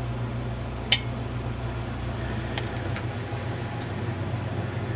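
A hanging lamp's switch clicks once, about a second in, turning the lamp back on, over a steady low hum.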